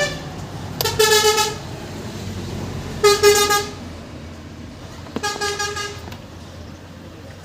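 A vehicle horn honking three times, short steady toots about two seconds apart, each under a second long, over a low background hum.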